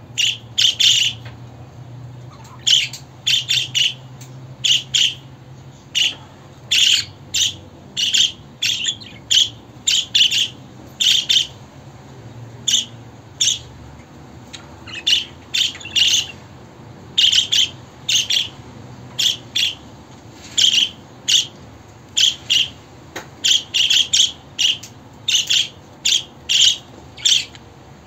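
Budgerigars chirping: short, sharp high chirps and squawks, often in quick runs of two to four, repeating every second or so.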